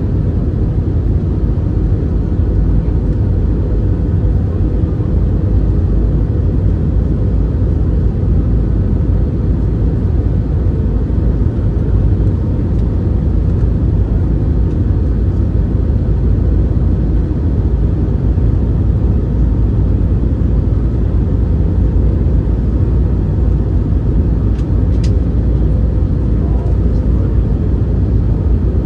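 Steady low cabin roar inside an Airbus A319-132 in flight on approach: engine noise from its IAE V2500 engines and airflow over the extended flaps, with a faint steady hum tone through it. A single brief click sounds near the end.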